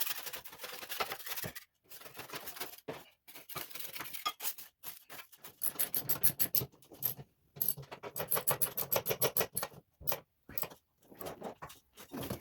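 Hand work on a mower deck: scraping and scrubbing strokes, with runs of fast, even strokes, broken into short pieces by abrupt cuts.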